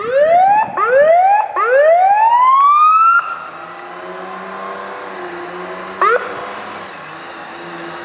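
Fire truck's electronic siren giving three rising whoops, the third longest and highest and cut off sharply, then the truck's Detroit Diesel 6V92T engine running steadily with one short siren blip about six seconds in.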